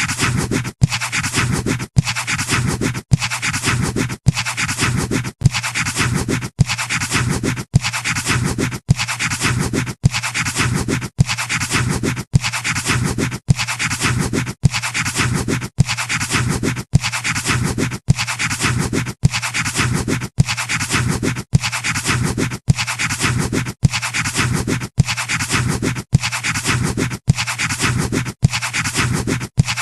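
Pencil scratching on paper: a short drawing-sound sample looped over and over, broken by a brief cut about every three quarters of a second.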